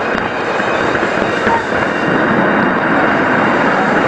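Fireworks display heard at close range: many shells bursting and crackling so close together that they run into one dense, steady noise, with hardly any separate bangs.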